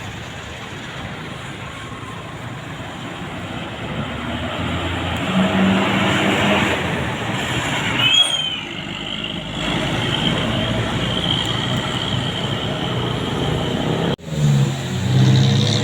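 Road traffic with a large bus passing. Its engine and tyre noise swell and peak midway, with a short high squeal about eight seconds in. After an abrupt cut near the end, a bus engine runs close by.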